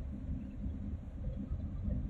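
Low, steady rumble of the 366 m container ship Hyundai Ambition moving slowly past close by.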